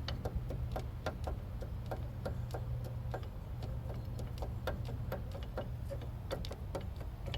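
Irregular clicking and knocking, about four a second, from the front hub assembly of a 2000 Jeep Cherokee being rocked back and forth by hand. The play that makes it is the sign of a worn-out hub bearing, which the owner takes to be the cause of his vibration.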